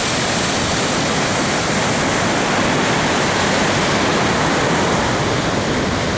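Ocean surf from a hurricane swell: a steady, loud wash of breaking waves.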